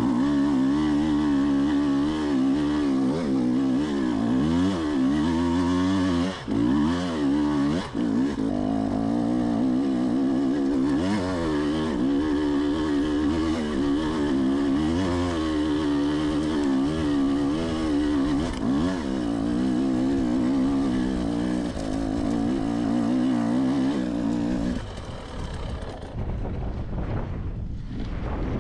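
Husqvarna dirt bike engine under load on a hill climb, its pitch rising and falling as the rider works the throttle, with the throttle briefly chopped about six and eight seconds in. Near the end the engine drops to a lower, rougher sound.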